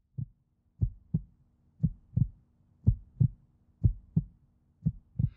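Heartbeat sound effect: low, short double thumps (lub-dub), about one pair a second.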